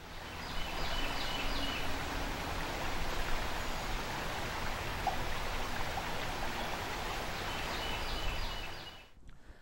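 Creek water running over a shallow riffle: a steady rushing wash, with a few faint high chirps near the start and again near the end. It fades out shortly before the end.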